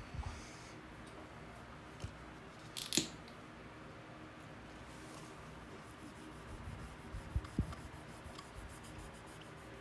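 Sparse handling sounds of hand repair tools on a wooden floor: a few light clicks, a brief scrape about three seconds in, and a cluster of soft knocks around seven seconds in, over a faint steady hum.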